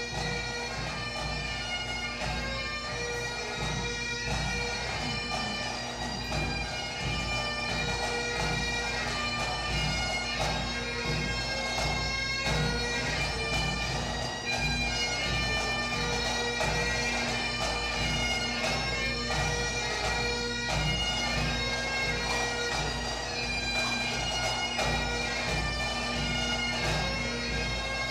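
Bagpipes playing a tune over a steady drone as the recessional music.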